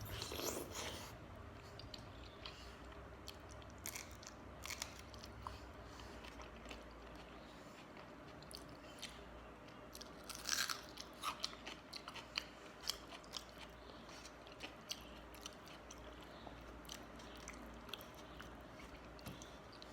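Close-miked chewing and wet mouth sounds of someone eating panta bhat, soft rice soaked in water, with many small scattered clicks and a louder run of them about ten seconds in.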